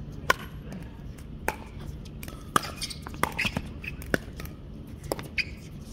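Pickleball doubles rally: a string of sharp pops from paddles striking the hollow plastic ball, about one a second, with two in quick succession near the end.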